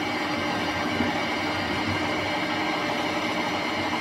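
Manual metal lathe running, the chuck spinning steadily while the tool takes a light skim cut off the end of the workpiece: an even motor and gear hum with a small tick about a second in.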